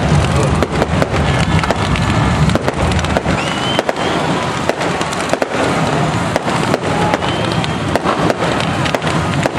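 Brisca F1 stock cars' V8 engines running together as the cars pass close by, with frequent sharp crackles and pops.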